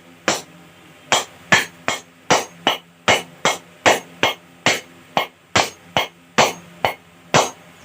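Small hammer tapping a 6201 ball bearing into a ceiling fan's end cover: about twenty light blows, two or three a second, each ringing briefly, as the bearing is driven down until it sits flush.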